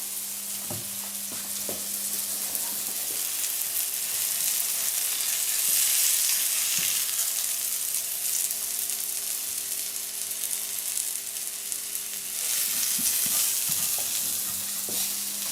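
Food sizzling as it fries in a hot pan, the sizzle swelling and easing twice, over a steady low hum.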